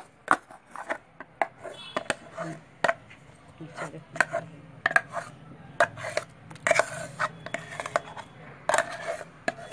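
Metal spoon scraping thick ground dal paste out of a steel mixer-grinder jar and knocking against the jar and bowl: irregular clinks and short scrapes, about two a second.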